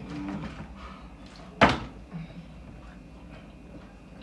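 A single sharp knock about one and a half seconds in: a plastic water bottle flipped and landing on a tabletop.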